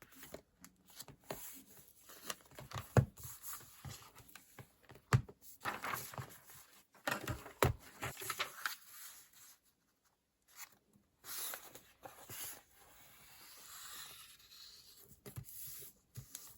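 Paper and sticker handling on a planner: intermittent rustling and peeling, with three sharp taps about three, five and eight seconds in.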